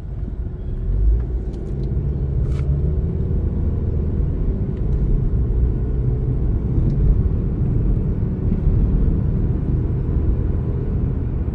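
Car engine and road rumble heard from inside the cabin of a moving car, growing louder about a second in and then steady.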